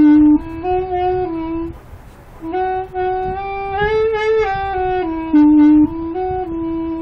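Homemade saxophone made from a watering can, playing a melody of held and stepping notes, with a short break about two seconds in.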